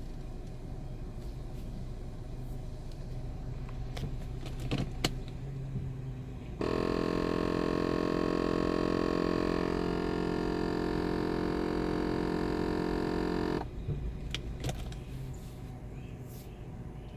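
A VW Passat's unexplained strange noise: a steady electric buzz of constant pitch that switches on abruptly, runs for about seven seconds and cuts off suddenly, preceded by a few light clicks. The owner cannot identify it; the car has a large EVAP leak and a faulty parking brake warning.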